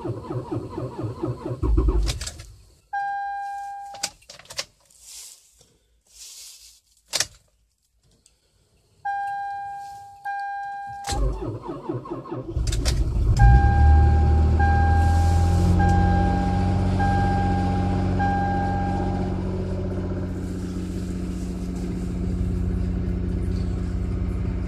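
2008 Toyota Highlander's 3.5 V6 cold-started at −37 °C. Warning chimes sound twice with the ignition on, then a short crank of about a second, and the engine catches loudly and settles into a steady fast idle. A chime beeps five times as it catches.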